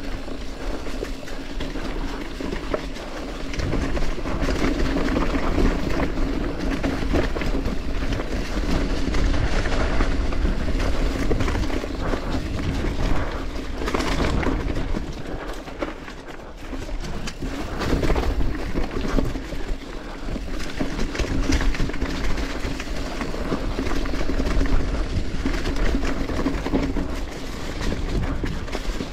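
Mountain bike riding down a rough, leaf-covered trail: the tyres roll and crunch through dry fallen leaves, with a constant clatter of knocks and rattles as the bike goes over rocks and roots.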